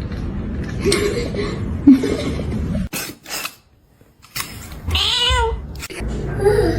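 A domestic cat meowing, with one long meow about five seconds in whose pitch rises and falls.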